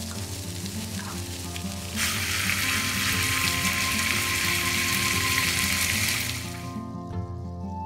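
Food sizzling in a frying pan: a lighter frying hiss, then a louder sizzle of the eggplant, green pepper and ground-meat stir-fry in miso sauce from about two seconds in, fading out about a second before the end. Background music plays under it.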